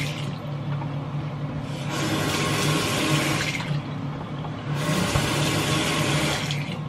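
Bathroom sink tap running, the water splashing over hands held under it, coming and going in three stretches of about two seconds each.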